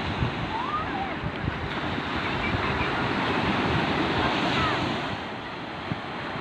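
Sea waves washing onto the beach, with wind buffeting the microphone; the surf swells for a few seconds and eases off about five seconds in.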